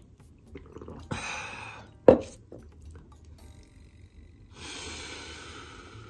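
A person drinking coffee milk: swallowing and breathing sounds, with one sharp gulp about two seconds in and a long breathy exhale near the end.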